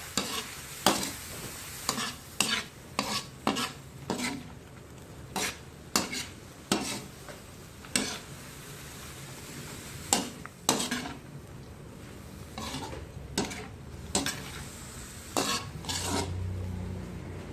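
Green beans and ground meat sizzling in a pan while being stirred, with a utensil clacking and scraping against the pan at irregular intervals.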